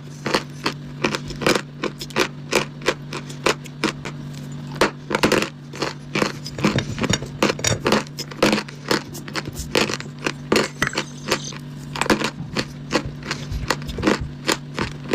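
Sawn chalk and dry clay being bitten and chewed close to the microphone: a rapid, irregular run of sharp, dry crunches, a few a second.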